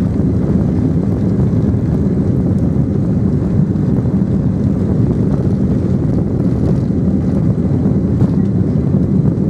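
Steady low rumble of a Boeing 767-300's twin turbofan engines heard inside the passenger cabin while the jet moves on the ground before takeoff, holding an even level without spooling up.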